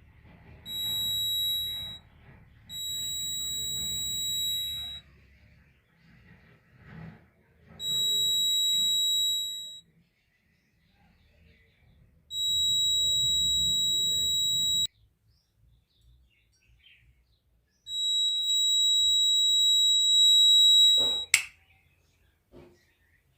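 Buzzer of a homemade water tank overflow alarm sounding a steady high-pitched tone in five separate bursts of one to three seconds, with gaps of silence between: the alarm is being set off when water reaches its sensor wires. A sharp click cuts off the last burst.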